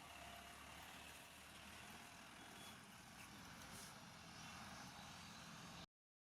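Faint, steady street ambience with vehicle noise and a low hum, cutting off abruptly near the end.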